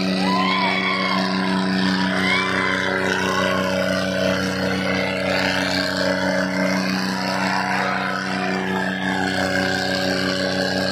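Diesel tractor engines, a John Deere and an Eicher, running steadily at high load as they strain against each other, the John Deere putting out black exhaust smoke. Crowd shouts and whistles rise over the engines in the first couple of seconds.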